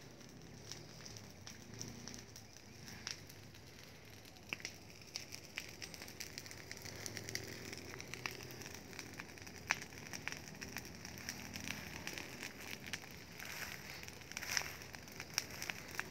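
Burning rubbish and dry grass crackling, with many sharp pops over a steady hiss, the popping growing busier in the second half.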